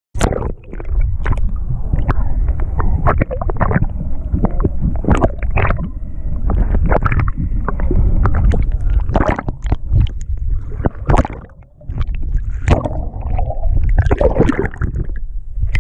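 Seawater sloshing, gurgling and splashing against a camera housing as it dips in and out of the waves beside a boat hull, with many sharp splashes over a steady low rumble.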